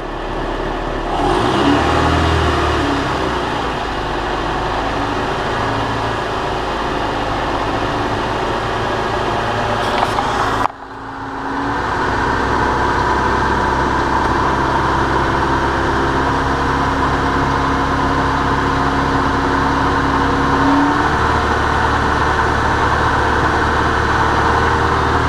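Car engine running steadily, with one tone slowly rising in pitch; the sound breaks off briefly about ten seconds in, then carries on.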